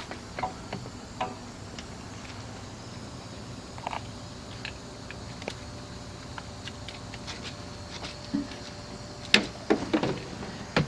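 Scattered small clicks and handling knocks of the eTruck telematics dongle being fitted to the truck's diagnostic port inside the cab, over a steady low background noise, with the loudest cluster of clicks near the end.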